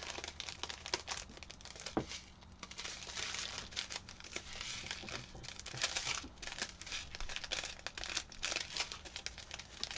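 Small plastic zip bags of diamond painting drills crinkling as they are handled and sorted by hand: an irregular run of soft rustles and clicks.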